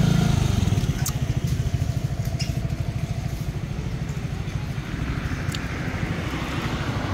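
A small engine running at idle, a steady rapid pulsing that eases down about half a second in, with a few sharp clicks.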